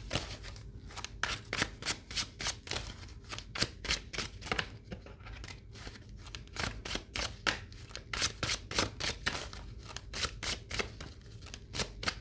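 A deck of oracle cards being shuffled by hand: a quick, even run of crisp card slaps, about four a second, with a short lull about five seconds in.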